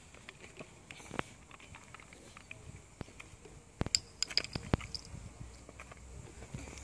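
Plastic water bottles being handled: a sharp click about a second in and a cluster of clicks and crackles just past the middle, over a faint background.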